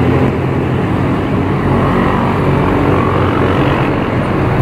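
Steady engine and road noise from a moving motor vehicle, a constant low rumble with no change in pitch.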